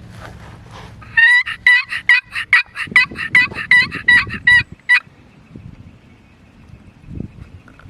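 Turkey yelping: a fast, loud run of about fifteen evenly spaced notes, about four a second, starting about a second in and stopping at about five seconds.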